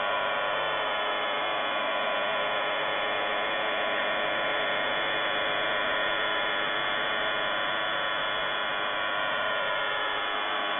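Unidentified shortwave signal on 5211 kHz heard through an SDR receiver's audio, possibly jamming: a steady dense buzz of many stacked tones over static, unchanging throughout.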